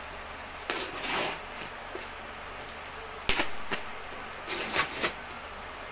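Hands opening a cardboard mail-order package: three short bursts of rustling and scraping, the second starting with a sharp snap a little past three seconds.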